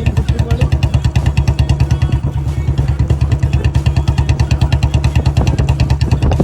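Royal Enfield Bullet single-cylinder engine running at low revs, with an even beat of about eight to nine thumps a second. The bike has been converted from its BS6 setup back to a BS3 setup.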